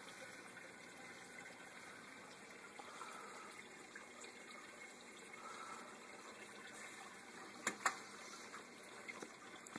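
Faint, steady sound of water running and trickling through a reef aquarium's sump circulation. Two brief knocks close together near the end.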